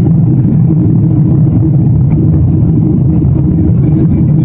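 Jet airliner cabin noise at cruise: a loud, steady drone of engines and rushing air with a low hum, unchanging throughout.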